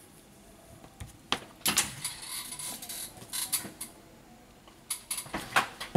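Hands handling a smartphone and tools on a workbench, with sharp clicks, knocks and rustling starting about a second in, and a second cluster of clicks near the end.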